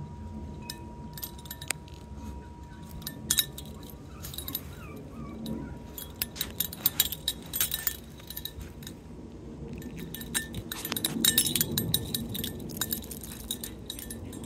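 Pomeranian puppy and adult Pomeranian moving about on a concrete patio: quick runs of light clicks and clinks that come in clusters and are thickest in the second half. A faint steady tone sounds for the first few seconds.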